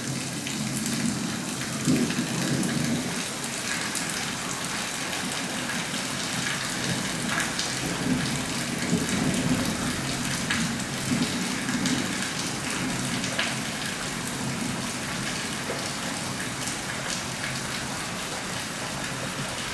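Steady rain from a monsoon thunderstorm, with drops ticking here and there. Low thunder rumbles swell up twice, about two seconds in and again about nine seconds in.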